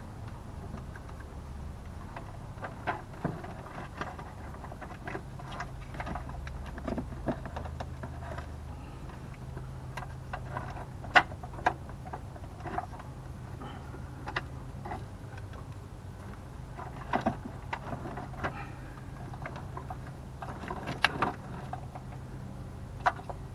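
Scattered light knocks and clicks of a Chevy 5.3 Vortec V8's plastic intake manifold being worked loose by hand, over a faint steady low hum.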